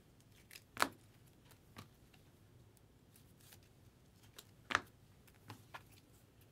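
Baseball trading cards and a clear plastic card holder being handled: faint scattered clicks and rustles, the two sharpest about a second in and just before five seconds.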